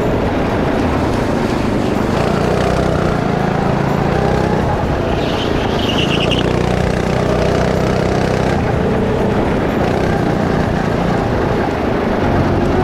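Go-kart engine running on the track, its pitch shifting every few seconds as the kart speeds up and slows. A brief high-pitched sound comes about five seconds in.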